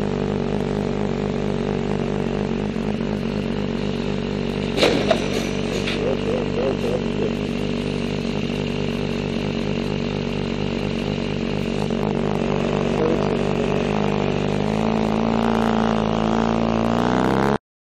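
Motorcycle engine running steadily at low revs, then rising in pitch as the bike speeds up near the end. A brief sharp sound comes about five seconds in, and everything cuts off suddenly just before the end.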